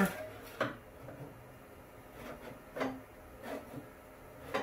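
Sheet-metal blank being turned over and slid across the notcher's table, with a few short, light scrapes and taps as it is lined up.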